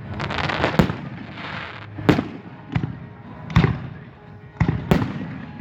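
Fireworks going off: about six sharp bangs at uneven intervals, with crackling between them.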